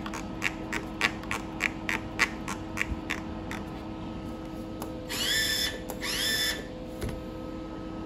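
Clicking detents of the rotary control knob on an ESAB Caddy MIG welder as it is turned, about three clicks a second for the first few seconds. Then come two short whines, each rising in pitch and levelling off, under a second apiece. A faint steady hum runs underneath.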